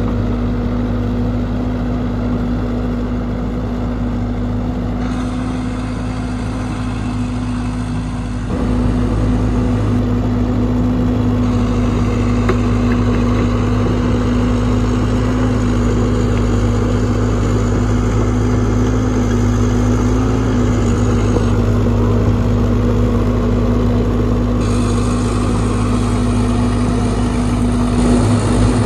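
Caterpillar 312B excavator's diesel engine running steadily with a constant hum, louder from about a third of the way in. A small motorbike passes near the end.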